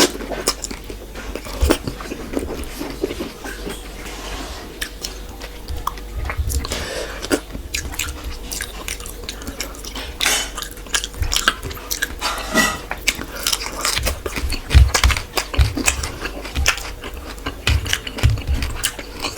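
Close-up eating sounds: a person chewing and biting food, with many quick wet clicks and crunches. A few low thumps come toward the end.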